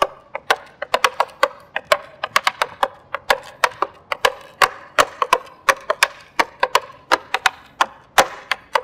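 Metal taps on tap shoes striking a wooden board in a combination made almost entirely of hops and shuffles: crisp clicks in quick rhythmic clusters, several a second.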